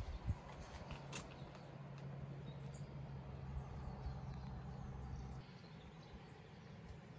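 Quiet forest ambience. A few faint high chirps are heard, and there are two sharp knocks near the start. A low steady hum sets in about a second and a half in and cuts off suddenly at about five and a half seconds.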